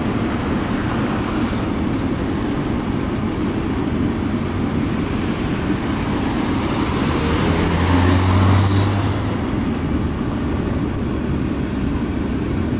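Steady road traffic noise. A vehicle passes close about eight seconds in, with a low hum that swells and fades.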